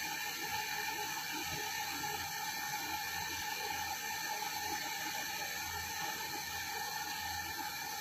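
Handheld gas torch flame burning with a steady hiss while it heats a copper pipe joint for brazing.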